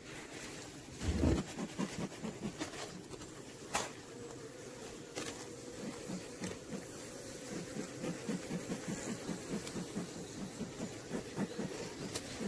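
A bee smoker's bellows being pumped, puffing smoke in a quick, regular rhythm over an open honeybee hive, with the steady hum of the bees underneath. A thump about a second in.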